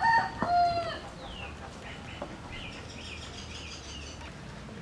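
A rooster's crow ends in a falling note within the first second. Smaller birds then chirp faintly.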